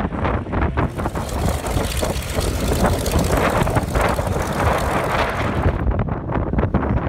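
Second World War piston-engined fighters running on the airfield, their engines heard through heavy wind buffeting on the microphone. Near the end the sound changes abruptly and turns duller.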